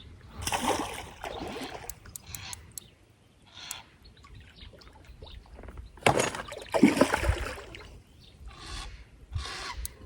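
Irregular splashing and sloshing of water as a hooked carp thrashes near the bank, loudest about half a second in and again around six seconds in, with a few sharp clicks in between.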